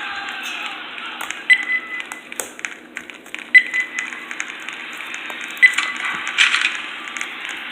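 Small clicks and taps, three of them sharper and each followed by a short high ringing.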